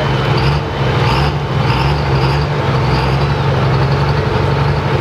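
Pro stock diesel pulling truck's engine running steadily and loud, with a wavering high whistle over it.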